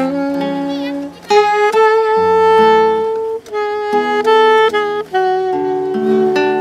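Saxophone playing a slow melody of long held notes over strummed acoustic guitar chords.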